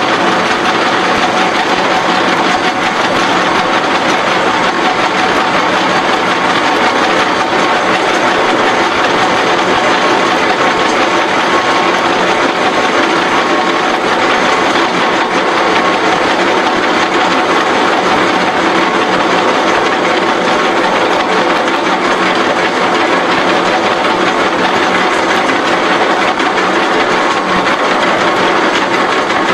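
H-beam bevelling machine's milling cutter cutting a bevel along the edge of a steel flange, a loud, steady machining noise over the hum of the machine's motor.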